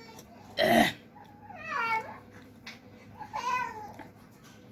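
A short, loud cough-like burst about half a second in, then two brief high cries, each falling in pitch.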